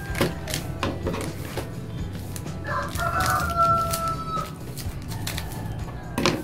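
A rooster crows once, about three seconds in: a single call held for nearly two seconds, over background music. Short sharp snips of scissors cutting a plastic snack wrapper come now and then.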